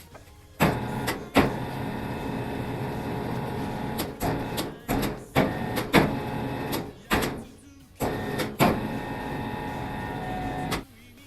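A small electric power tool's motor running in short runs, switched on and off abruptly about eight times, with the longest run near the end.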